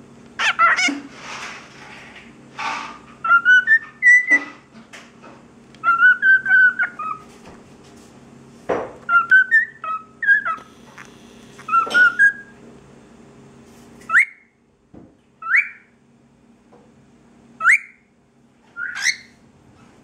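Cockatiel whistling short runs of random notes that slide up and down in pitch, with a few sharp clicks in between, then four quick rising chirps near the end.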